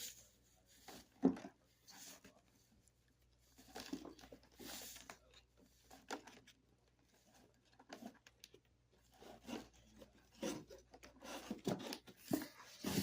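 Comic books being lifted out of a shipping box and handled: quiet, intermittent rustling of paper and packing material with a few soft knocks.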